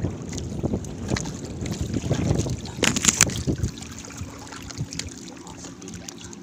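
A monofilament gill net is hauled by hand over the side of a wooden outrigger boat, with water splashing and dripping off the mesh, loudest about three seconds in. Wind rumbles on the microphone for the first half, then it goes quieter and a faint steady hum remains.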